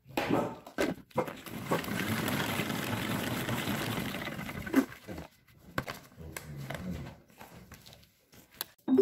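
Plastic salad spinner: a few clicks as the lid goes on, then the basket spinning the sliced fennel with a steady whirr for about three and a half seconds, stopping with a knock. Quieter plastic handling follows as the lid comes off.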